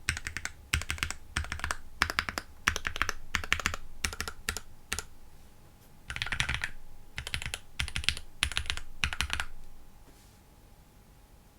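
Typing on a KBDfans D65 65% mechanical keyboard with Gateron Black Ink v2 linear switches and EPBT 9009 PBT keycaps: quick runs of keystrokes, a brief pause about five seconds in, more runs, then the typing stops about two seconds before the end.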